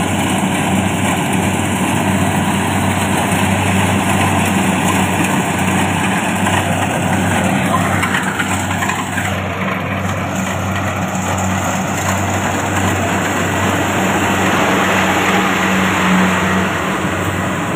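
Kubota combine harvester's diesel engine and machinery running steadily, a loud, even engine hum with mechanical noise over it.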